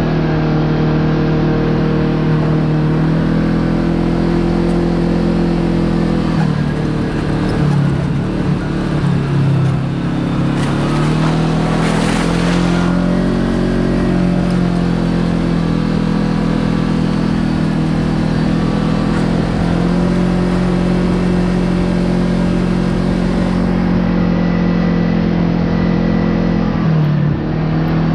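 Kawasaki KRX side-by-side engine running under way, its pitch dropping and climbing again a few times as the throttle eases and picks back up. There is a short hiss about twelve seconds in.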